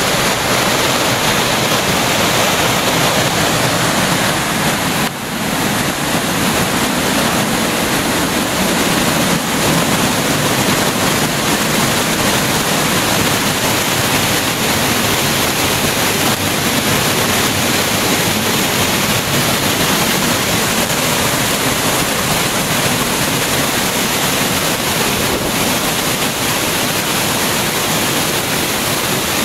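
Tall waterfall plunging over a rock cliff, a loud, steady rush of falling water heard close up from just beside and behind the curtain of water. The sound dips briefly about five seconds in.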